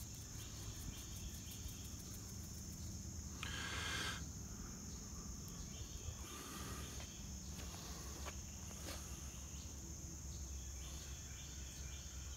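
Insects chirring, a steady high-pitched drone with a fast pulsing above it. About four seconds in there is a brief rustle, and a few faint clicks come later.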